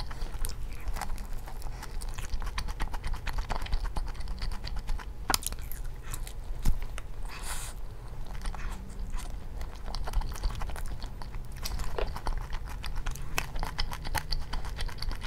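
Close-miked biting and chewing of crispy fried chicken wings, the skin crackling in many sharp little crunches.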